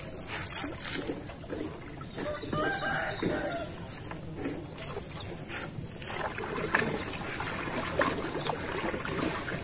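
A rooster crowing in the background about three seconds in, over a steady high-pitched whine. There are a few sharp knocks of a paddle against the boat later on.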